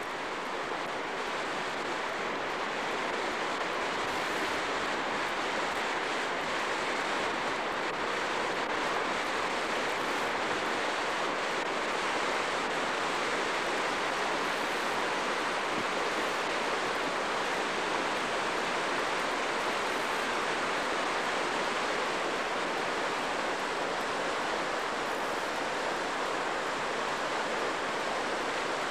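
Frio River rapids rushing steadily as the water pours over a low rock ledge.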